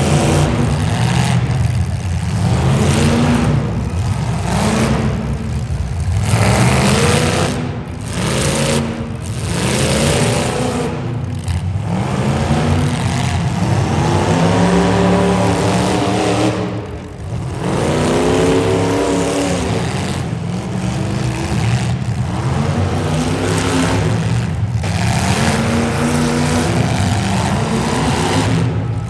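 Derby car engines revving hard, their pitch climbing and falling again and again, with several engines running at once.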